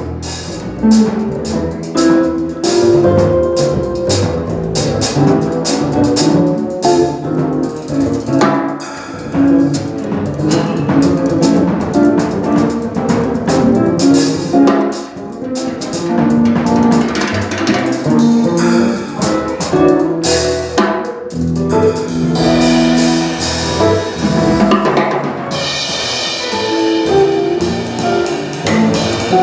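A jazz trio playing live: busy drum kit with snare and cymbals over plucked upright bass and guitar. The cymbals grow brighter near the end.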